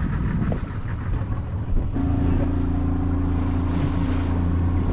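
Fishing boat's engine running; about two seconds in it settles into a steady, louder hum.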